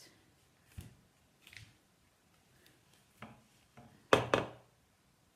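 Handling noises from a PVC pipe wrapped in rolled newspaper sticks: a few light knocks and paper rustles, then two louder knocks close together about four seconds in as the pipe is laid down and turned on the glass tabletop.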